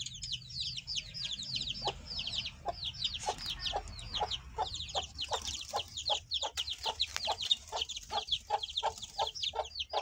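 Aseel chicks peeping: rapid, repeated high chirps, each falling in pitch, several a second without a break.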